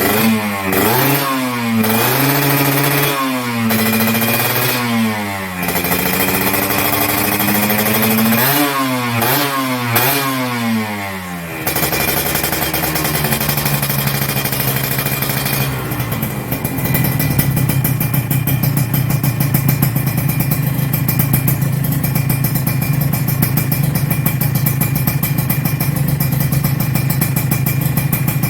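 Kawasaki Ninja 150 RR two-stroke single-cylinder engine revved up and down over and over for roughly the first dozen seconds. After that it runs at a steady, even pitch.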